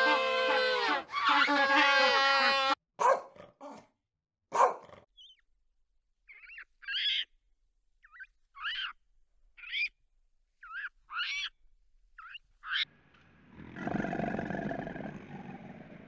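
A series of animal calls. First loud, wavering calls with many overtones, like king penguins trumpeting in a colony; then a few sharp clicks and a string of short, high chirping calls from macaques; from about 13 s a harsh, rasping, hiss-like growl from a crocodile.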